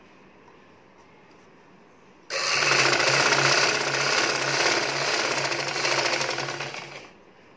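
Vidya sewing machine running and stitching fabric: it starts suddenly about two seconds in with a fast, steady run of stitches, then slows and stops near the end.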